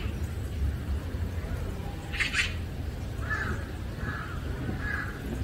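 Animal calls: a short raspy call about two seconds in, then a run of four shorter calls a little under a second apart.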